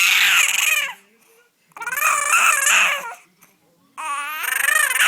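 A 5-month-old baby girl making long, high-pitched screaming noises whose pitch wavers up and down. There are three of them, each about a second long, with short pauses between.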